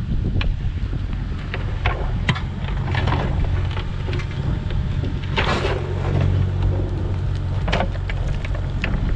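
An engine running steadily, with scattered knocks and clanks and a short scraping rush about five and a half seconds in. Wind buffets the microphone.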